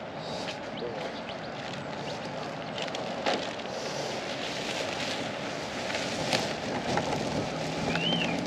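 Steady outdoor traffic noise from a road, with footsteps and light wind on the microphone.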